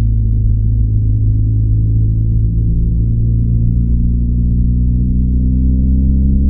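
BMW R1250GS boxer-twin engine on its stock exhaust, running steadily under way. Its note rises slowly near the end.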